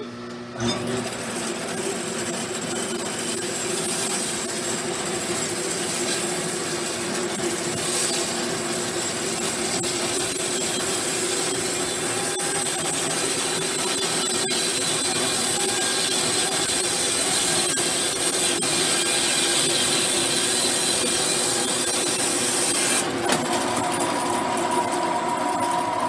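Timbery M100 band sawmill blade running through a log on a very thin pass that takes off mostly bark: a loud, steady sawing noise starting about half a second in. Near the end the hiss drops away and a steadier hum is left.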